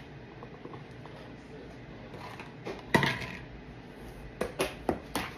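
Plastic spatula knocking and scraping against a stainless steel mixing bowl and a plastic tub while whipped topping is scooped in. One louder clank about three seconds in, then four quick taps near the end.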